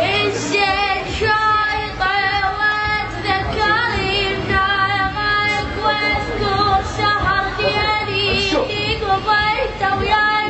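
A high voice singing a wavering, ornamented melody with heavy vibrato, over a steady low hum.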